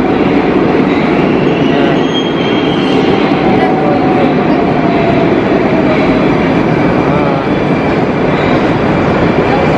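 Moscow metro train moving along the platform in an underground station: a steady loud rumble of wheels and traction motors, with a faint whine that falls slightly in pitch partway through.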